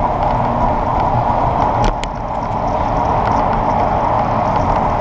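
Steady rush of wind and tyre noise picked up by a bicycle-mounted GoPro rolling along a paved path, with two sharp clicks about two seconds in.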